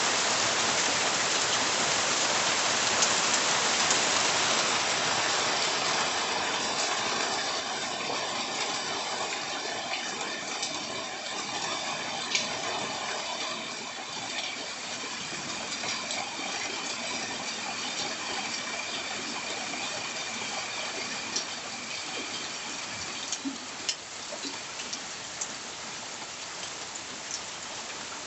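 Steady rain falling, heavier for the first several seconds and then easing to a lighter shower, with scattered louder drips.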